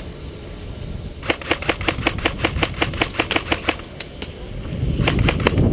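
Airsoft rifle firing a rapid string of sharp shots, about six a second for a couple of seconds, then a few more shots near the end. A low rumble builds under the last shots.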